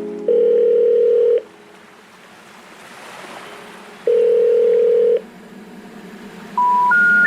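Electronic beeps in a background music track: a steady, phone-like tone held about a second, a soft rushing hiss, the same tone again, then three short beeps stepping upward in pitch.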